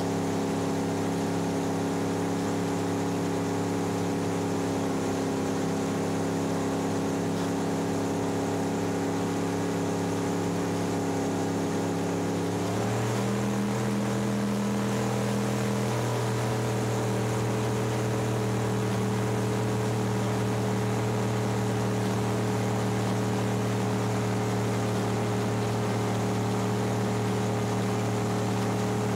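Open racing boat's engine running at a steady speed, stepping up to a slightly higher speed about 13 seconds in and then holding there.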